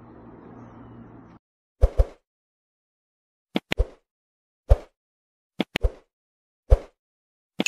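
Subscribe-button animation sound effects: a string of short pops and mouse clicks, some in pairs or threes, about a second apart. They follow a brief stretch of faint outdoor background with a low hum that cuts off suddenly about 1.4 seconds in.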